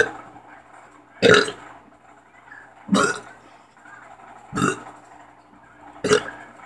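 A person burping deliberately over and over: short, loud burps about every one and a half seconds, five in all.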